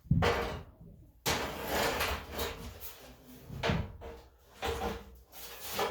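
Several knocks on the steel front fender of a 1978 Ford F100 as a dent is worked back with a body dolly, each starting suddenly and dying away within about a second.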